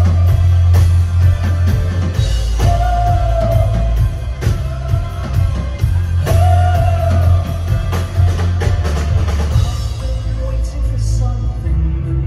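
Live synth-pop band playing loud: a male singer holds long sung notes over heavy synth bass and a steady drum beat. The drums drop out about ten seconds in, leaving softer synth.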